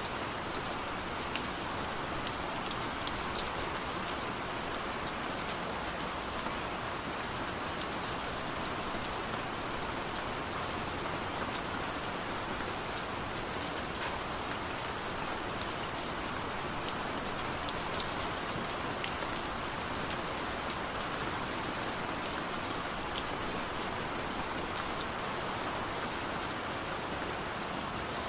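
Steady rain falling, with many close drops ticking sharply on a surface.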